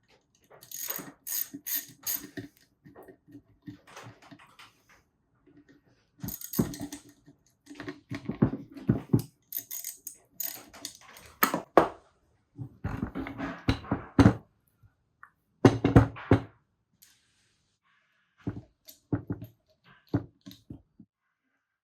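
Small metal parts and tools clinking, tapping and knocking in irregular clusters as swingarm hardware is greased and fitted by hand.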